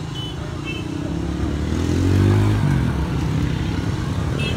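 A motor vehicle's engine passing close by, getting louder and higher in pitch to a peak just past the middle, then dropping away.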